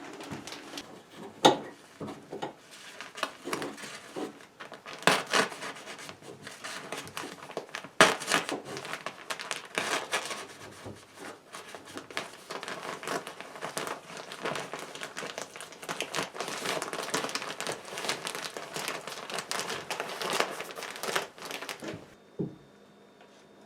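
Fiberglass insulation being handled and fitted into wall framing: continuous crinkling and rustling, with sharp knocks about a second and a half, five and eight seconds in. It stops shortly before the end.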